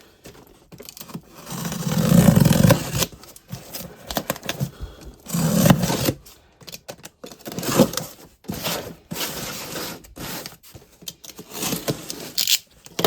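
Cardboard shipping box being opened by hand: tearing, scraping and rustling of cardboard and packing in irregular bursts, loudest about two seconds in and again near six seconds.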